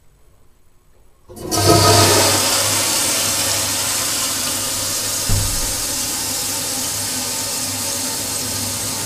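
Stainless steel toilet flushing: after a quiet second and a half the flush comes on suddenly as a loud rush of water, then runs on steadily, with a brief low thump about five seconds in.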